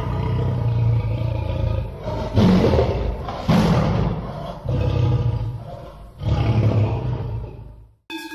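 Lion roaring: about five long, deep roars one after another, the last cutting off abruptly near the end.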